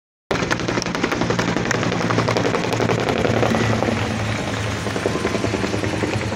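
Roadside crowd applauding and cheering, a dense, continuous clatter of many hands clapping with voices mixed in. The sound drops out for a moment right at the start.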